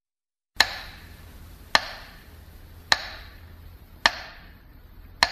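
Five sharp knocks, evenly spaced a little over a second apart, each with a short ringing tail.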